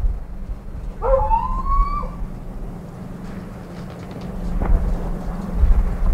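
Gusty low rumbling, with one drawn-out animal cry about a second in that rises, then holds for about a second.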